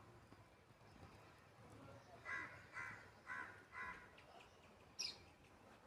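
A crow cawing four times in a row, about two caws a second. Near the end a small bird gives one short, high chirp that drops in pitch.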